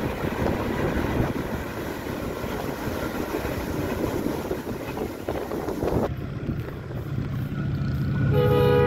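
A train rumbling and rattling along the tracks. After a cut about six seconds in, the steady drone of an approaching Pakistan Railways diesel-electric locomotive, which sounds its horn near the end.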